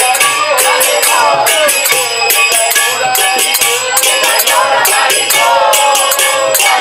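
Devotional kirtan: a lead voice chanting a melody over karatalas, small brass hand cymbals, clashing in a fast steady rhythm.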